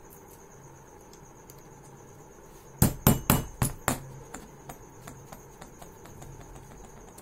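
A hammer driving a nail through a thin metal strip to punch a hole: a quick run of about five sharp strikes a little under three seconds in, then a few lighter taps.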